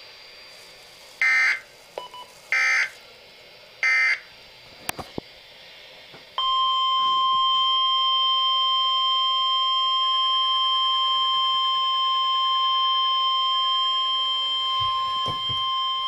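Weather alert radio sounding an emergency alert for a severe thunderstorm warning. Three short bursts of SAME digital header data come about a second and a half apart, then about six seconds in the steady warning alarm tone starts and holds.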